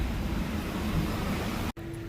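Scooter engine running with the rubbing noise of a worn aftermarket 20-roller starter clutch: its 'rollers' scrape against the large starter gear instead of rolling, because the pivot has worn loose, a noise easily taken for a slipping belt or clutch. It cuts off abruptly near the end, replaced by a steady tone.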